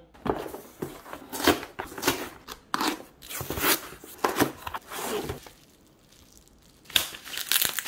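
Parcel packaging being opened and handled: cardboard and a foil bubble-insulated pouch rustling, crackling and tearing in a run of short bursts, with a brief lull a little past the middle before more rustling near the end.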